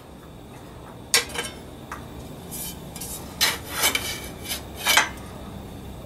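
Irregular light metallic clinks and scrapes, about half a dozen, as a bolt on a bead roller is tightened down with a hand tool.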